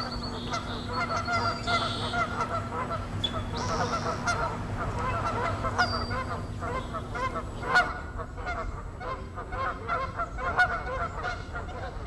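Canada geese honking in a continuous, rapid chorus of short calls. A few high, thin whistles from another bird come in the first six seconds, and a single sharp click sounds about eight seconds in.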